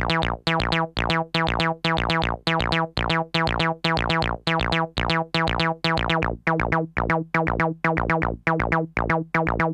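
Roland TB-03 bass line looping a sequenced acid bass pattern: the same low A-sharp note repeated evenly about four times a second, each note bright at its start and quickly fading.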